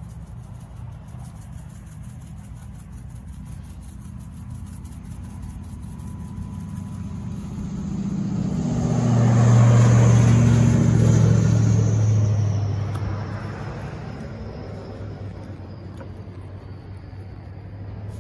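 A motor vehicle drives past, its engine sound building to a peak about ten seconds in and then fading, with a high whine that drops in pitch as it goes away, over a steady low rumble.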